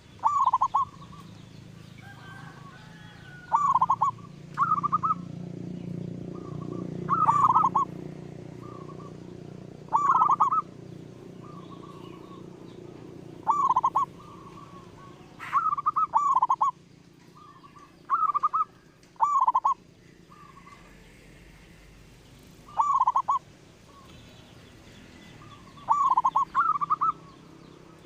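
Zebra dove (perkutut) cooing in short, loud phrases, about a dozen of them repeating every one to three seconds, with fainter coos between.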